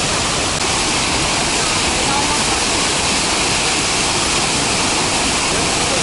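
Upper Düden Waterfall's several cascades pouring over a rock ledge into the pool below: a loud, steady rush of falling water.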